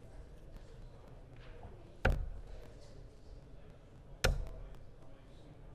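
Two steel-tip darts striking a bristle dartboard, one about two seconds in and one about four seconds in, each a single sharp thud.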